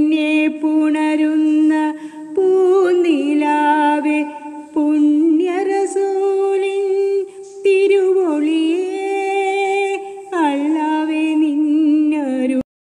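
A woman's voice singing a wordless melody unaccompanied, closing a Malayalam devotional song. She holds long notes with gliding ornaments in phrases of a couple of seconds each, and stops abruptly near the end.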